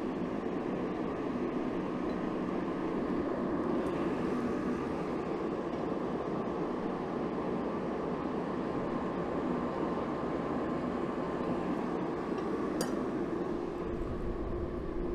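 Forge burner running with a steady rushing noise and a low hum. One short metallic click about thirteen seconds in.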